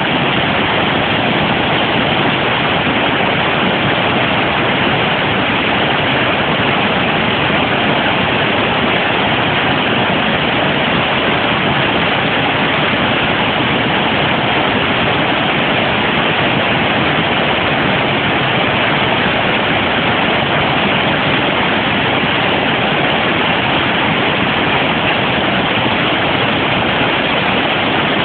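River water rushing steadily over a low rock-ledge waterfall and through the whitewater below it.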